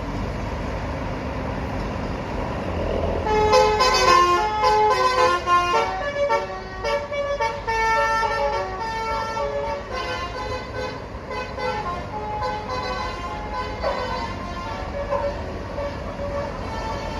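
Bus 'telolet basuri' musical horn playing a tune of quick, changing notes that starts about three seconds in, is loudest for the next few seconds and then fades away, over a low vehicle rumble.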